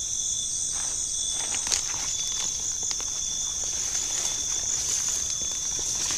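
Steady chorus of night insects, a constant high-pitched trill, with a few faint steps through the undergrowth.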